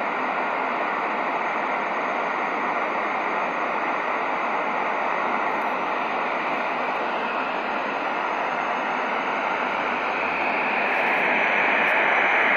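Shortwave receiver static: a steady hiss from a Tecsun PL-660's speaker tuned in upper sideband to 4577 kHz, with no voice or tone on the frequency now that the numbers transmission has ended. The hiss grows slightly louder near the end.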